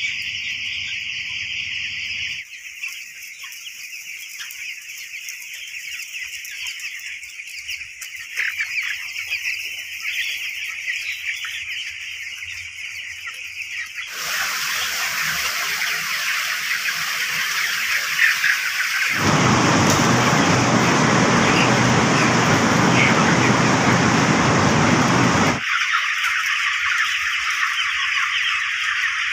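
A large flock of young broiler chickens in a poultry shed, chirping in a dense, continuous chorus; the sound changes abruptly at several points. For several seconds past the middle a loud, even rushing noise covers it.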